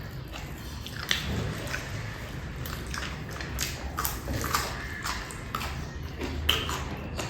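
Close-up chewing and mouth sounds of someone eating rice and fish curry: irregular wet smacks and clicks, several a second.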